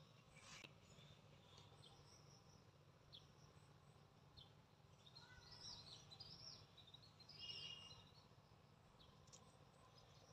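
Near silence: faint outdoor ambience with a few distant bird chirps, busiest a little past the middle.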